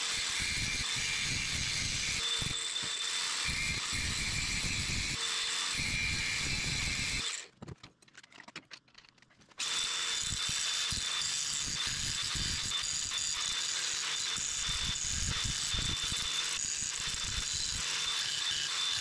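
DeWalt angle grinder running at full speed with a steady high whine, its disc grinding a flat iron bracket bar. It stops for about two seconds just past the middle, then starts up and runs again.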